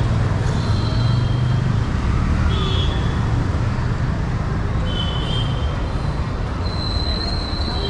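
Busy city street traffic: a steady rumble of passing vehicles, with brief high-pitched tones cutting through now and then.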